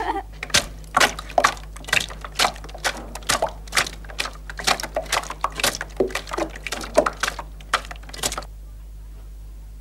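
Flat wooden paddle beating runny batter in a large ceramic bowl: a quick, irregular run of wet slaps and knocks, about three a second, that stops about eight and a half seconds in.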